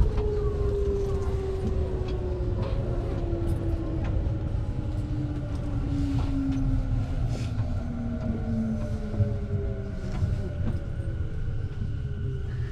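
Electric train's traction motors whining over a low rumble, the whine falling slowly and steadily in pitch as the train slows down.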